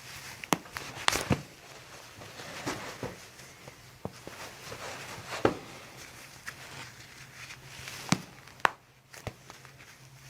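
Joints of the toes and ankle cracking under chiropractic manipulation: about half a dozen short, sharp pops spread irregularly, with the loudest a second in and near the middle, amid soft handling rustle.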